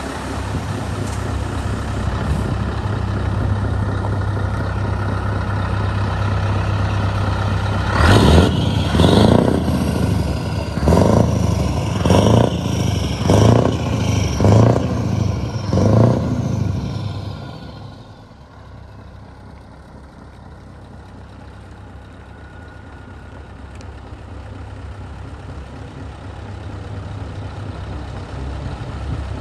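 Scania V8 diesel truck engine running as the tractor unit moves off with its tipper trailer, its steady low note broken about a quarter of the way in by a run of about eight loud surges roughly a second apart. The sound then drops away sharply and carries on quieter and steady as the truck pulls away.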